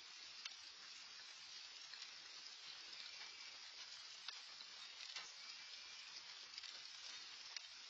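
Light rain falling steadily, a faint even hiss with scattered drops ticking sharply, several times a second.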